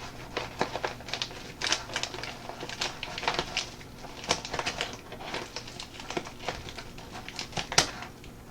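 Scissors cutting open a mailed package, with the packaging being handled: irregular sharp snips, clicks and crinkles.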